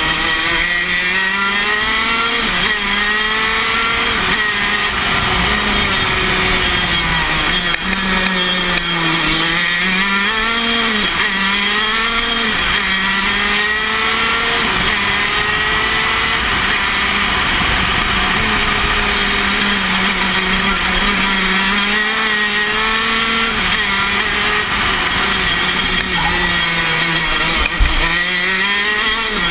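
Tony Kart KZ125 shifter kart's 125cc two-stroke engine at racing speed, heard on board: the pitch climbs hard, drops back, and climbs again over and over as it accelerates through the gears and slows for corners.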